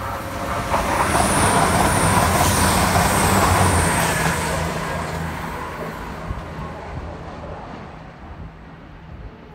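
EMR Class 222 Meridian diesel-electric multiple unit passing through the station at speed: the drone of its underfloor diesel engines and the noise of its wheels on the rails swell, are loudest about one to four seconds in, then fade as it moves away.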